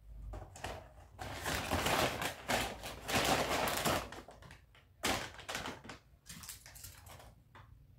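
A brown paper takeaway bag being handled and folded, rustling and crinkling. It is loudest for a few seconds in the first half, then a few separate crackles follow.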